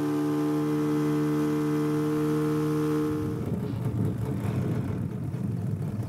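Boat engine running steadily, a constant hum. About three and a half seconds in it gives way to a rougher, uneven rumble.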